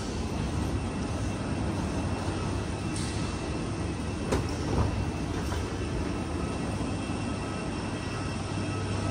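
Steady low hum and rumble of a running escalator in a large terminal hall, with two sharp knocks about halfway through.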